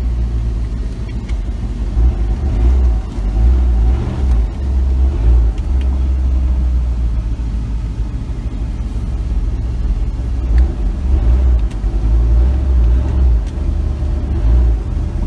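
Low, steady rumble of a vehicle driving slowly, heard from inside the cab, swelling and easing a little.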